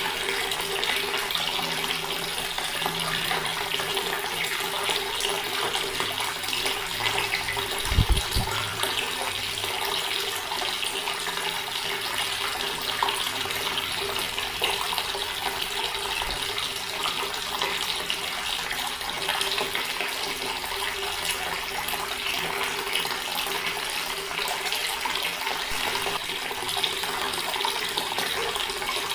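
Water running steadily from a tap, an even splashing rush with a faint steady tone underneath. A single low thump about eight seconds in.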